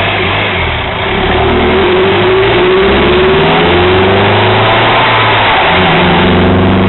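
Honda Euro R's engine accelerating, its pitch climbing, dropping back, then climbing again.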